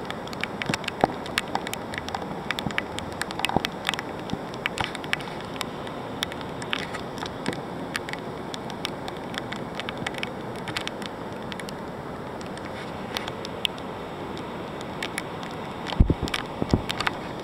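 Rain falling with a steady hiss, with drops ticking irregularly on a nearby surface. A low thump about sixteen seconds in.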